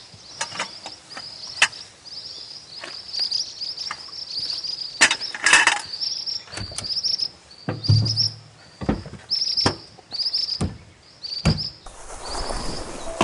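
High-pitched insect chirping, one short chirp repeating a little more than once a second, with scattered sharp clicks and knocks and a dull thump about eight seconds in.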